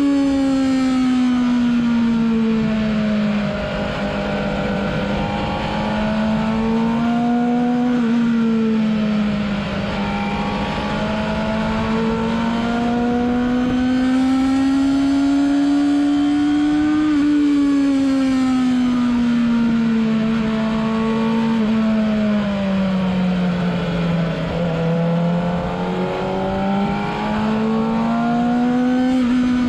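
Sport motorcycle engine heard onboard while riding on a track, its pitch falling and rising in slow sweeps of several seconds as the rider rolls off and opens the throttle.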